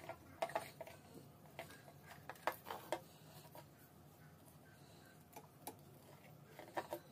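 Faint, irregular small clicks and light taps from wires and a soldering iron being handled while splicing motorcycle charging-system wiring, with a faint steady low hum underneath.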